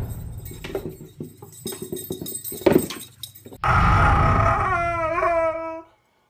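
Light irregular knocks and scuffs from a puppy dragging a cardboard milk carton across a wooden floor, with one sharp knock. After about three and a half seconds a husky starts a loud scream-like cry that turns into a howl with a wavering pitch, then stops abruptly.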